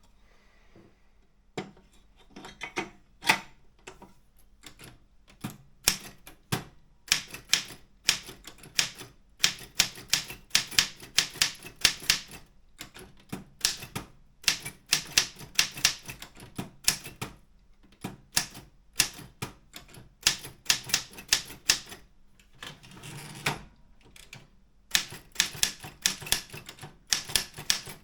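Optima M14 manual typewriter being typed on: fast, irregular runs of sharp keystroke clacks as the typebars strike the platen. There is a short pause near the start, and a longer break with a duller sound about 23 seconds in.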